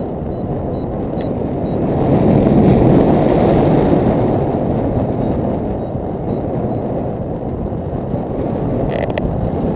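Airflow from paraglider flight buffeting a foot-mounted GoPro Hero2: a loud, muffled wind rumble that swells slightly two to three seconds in.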